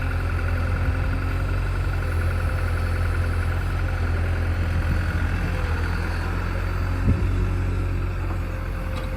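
Diesel engine of a backhoe loader or tractor running steadily at an even low pitch, with a brief knock about seven seconds in.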